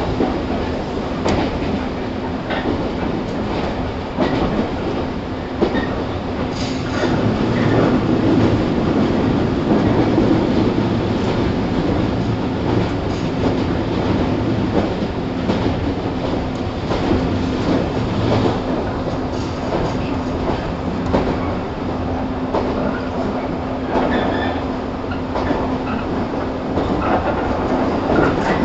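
Onboard running sound of a 115 series electric train's motor car (KuMoHa 115-1005) at a steady speed. A constant traction-motor and gear hum sits over the rumble of the wheels, with rail-joint clicks scattered through it.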